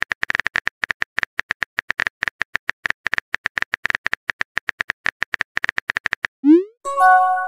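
Phone-keyboard typing sound effect: a quick run of short, even clicks, about eight a second, as a message is typed. Near the end the clicks stop and a short rising pop marks the message being sent, followed by a brief chime.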